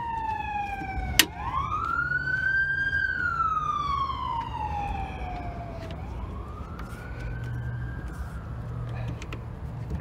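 A siren wailing in slow falling and rising sweeps, growing fainter in the second half. A single sharp click about a second in.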